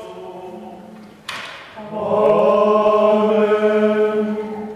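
Choir singing chant: a phrase dies away, a sharp knock sounds about a second in, then a loud held chord comes in about two seconds in and is sustained until near the end.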